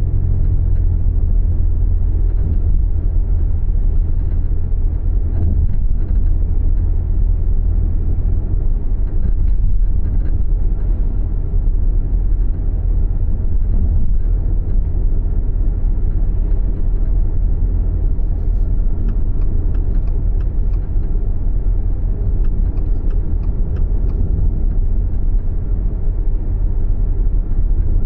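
Subaru Levorg driving at a steady pace: a continuous low rumble of road and engine noise, with a few faint ticks or rattles in the last third. The car is being recorded for an abnormal noise that shows up while driving.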